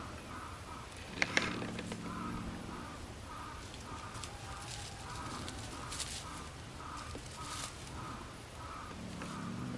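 Birds calling outdoors: short calls repeating about twice a second, with a longer, lower call about a second in and again near the end, and two sharp clicks just after a second in.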